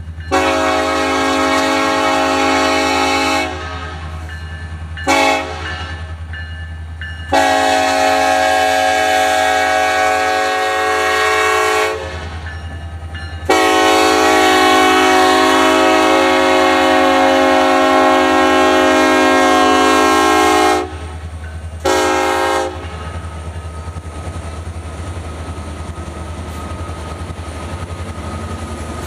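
Locomotive's five-chime Nathan K5 air horn sounding five blasts: a long one, a short one, two longer ones, and a final short one. A steady low rumble from the passing train runs underneath.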